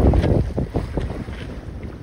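Wind buffeting the microphone aboard a Com-Pac 16 sailboat under way in choppy water, with water washing along the hull. It is loudest in a gust in the first half second, then eases off.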